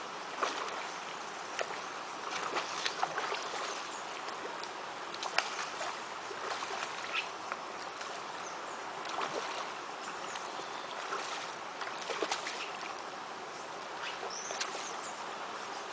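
Steady hiss of running water with scattered small splashes and clicks.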